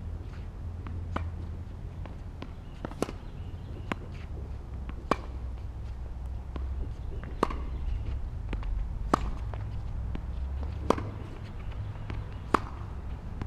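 Tennis rally: sharp racquet strikes on the ball about every two seconds, with fainter ball bounces between them, over a steady low rumble.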